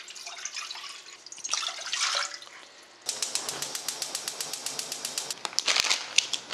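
Water poured from a glass pitcher into a saucepan, then a gas stove burner being lit: rapid, even igniter clicking with the hiss of the gas catching, starting about three seconds in. A plastic packet rustles near the end.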